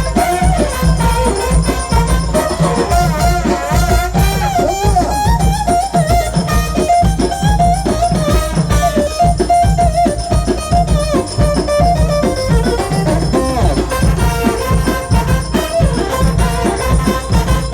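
Loud instrumental dance music with a heavy, steady beat and deep bass under a wavering, ornamented lead melody.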